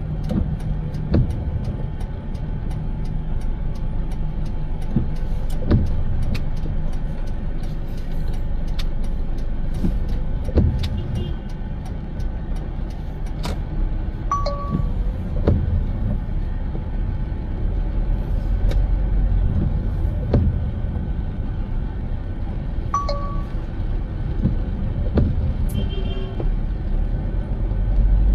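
Car driving, a steady low road rumble with many scattered sharp ticks. Two short beeps sound, about halfway through and again near three-quarters of the way.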